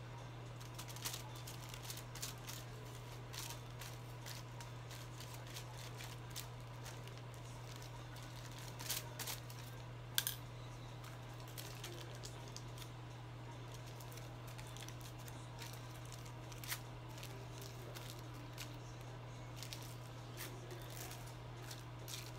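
Aluminium hair-colouring foils being handled and folded, giving scattered small crinkles and clicks, with one sharper click about ten seconds in, over a steady low hum.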